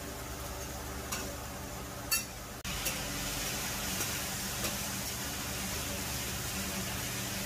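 Meat frying on a hot flat-top iron griddle, with a couple of sharp metal spatula clicks on the plate. About two and a half seconds in, liquid hits the hot iron and the sizzling suddenly jumps to a loud, steady hiss as it boils off in a cloud of steam around the meat.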